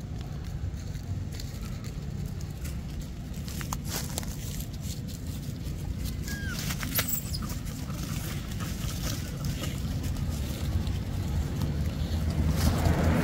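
Dry leaf litter crackling and rustling under macaques moving over it, with a steady low rumble underneath. The crackling grows louder near the end as the monkeys walk off across the leaves.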